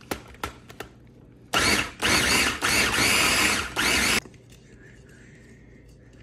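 Small electric food chopper pulsed in four bursts over about three seconds, its motor whirring as the blades chop charred tomatoes, onion and jalapeño into salsa.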